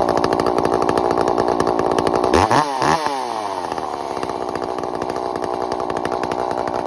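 Ported Echo CS-590 Timberwolf two-stroke chainsaw with a modified muffler, running at high revs. Its pitch dips and recovers twice about two and a half seconds in, then holds steady.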